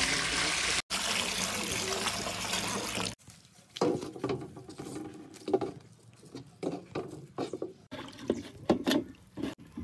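Water being poured in a steady stream for about three seconds, broken briefly by an edit near one second. After a cut, irregular short knocks and scrapes follow.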